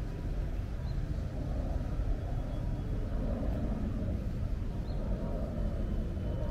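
Steady low rumble of distant road traffic, with two faint, short high chirps about four seconds apart.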